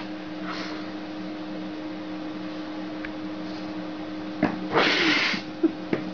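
Steady low electrical hum. About four and a half seconds in come a click and a short breathy hiss, then two light knocks near the end as a cat and a kitten tussle on a wooden floor.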